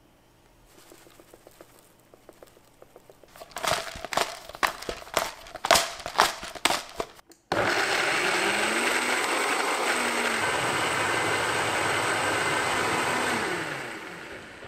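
Countertop blender breaking up soaked cashews and onion chunks: a run of irregular knocking and clattering as the blades hit the pieces. Then it runs at high speed with a loud, steady whir, pureeing them into a smooth sauce, and winds down near the end.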